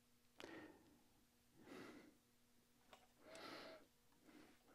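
Near silence, with a few faint breaths.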